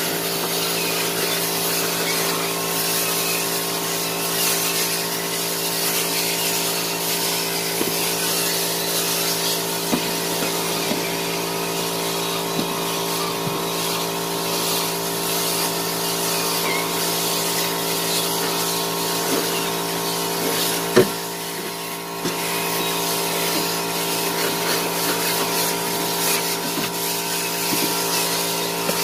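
Cordless drill with a scrub brush attachment running steadily, its motor whining and its bristles scrubbing foamy cleaner on a vehicle floor. One sharp knock about three-quarters of the way through, with a brief dip in the sound after it.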